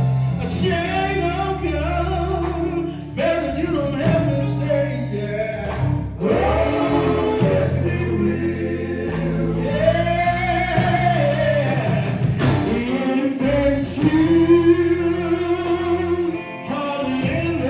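Male gospel vocal group singing in harmony with a live band, with several long held notes.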